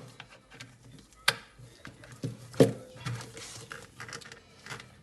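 Sharp plastic clicks and knocks from handling a nail drill's parts, likely as its foot pedal is connected, with two louder knocks about a second and a half apart.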